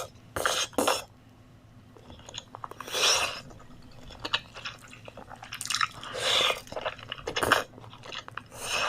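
A person eating grilled mini sausages: several separate bites with wet chewing between them, coming a second or more apart.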